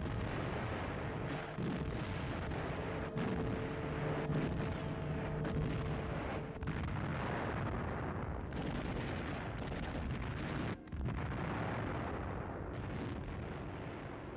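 Artillery fire and shell explosions: a dense, continuous rumble broken by several sharp shots.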